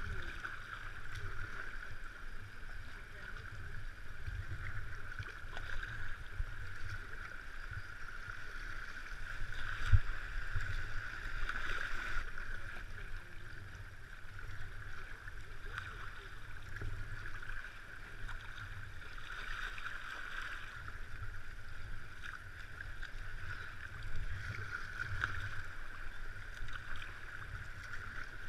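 River water running past a kayak's hull, a steady hiss that swells every few seconds, over a low rumble. One sharp knock about ten seconds in.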